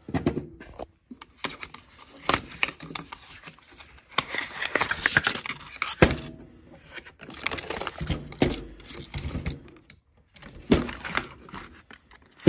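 A set of wrenches being wrestled out of its packaging: a run of clicks, knocks, scrapes and rustling, with metal clinking.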